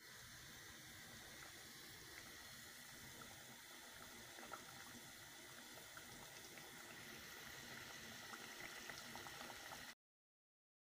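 Fish curry simmering in a steel pot on a gas stove: a faint, steady bubbling hiss with small scattered pops, which cuts off suddenly near the end.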